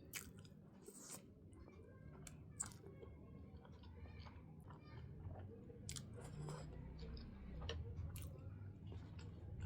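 Soft, close-miked chewing of sushi: wet mouth sounds with scattered small clicks.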